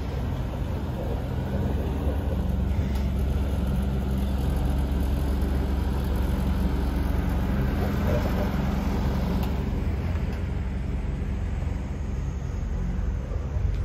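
An engine running steadily at idle: a low, even hum with no change in speed.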